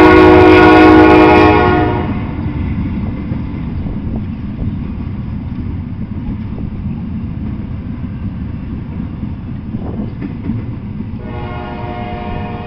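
Double-stack intermodal freight train rolling past with a steady low rumble of wheels on rail. A train horn sounds loudly for the first two seconds, then again more faintly from about eleven seconds in.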